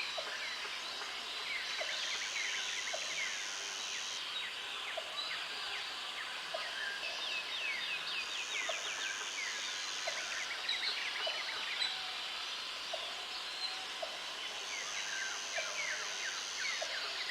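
Natural outdoor ambience: many birds chirping and trilling at once, a high insect-like buzz that comes in three stretches of two to three seconds, and short low pips repeating about once a second.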